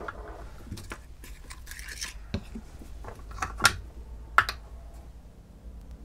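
Handling noises from soldering irons and their wires being worked by hand: light scraping and rustling with a few sharp small clicks of metal and plastic, the loudest two about three and a half and four and a half seconds in.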